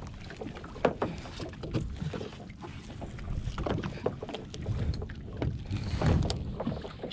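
Fishing net being hauled by hand over the side of a small boat: irregular clicks, knocks and rustling of mesh and line against the gunwale, with wind buffeting the microphone.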